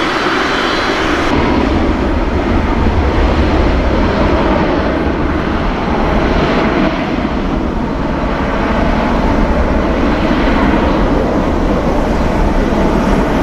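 Boeing 747-400 freighter's four turbofan engines at takeoff thrust during the takeoff roll: a loud, steady jet noise that swells gently a couple of times.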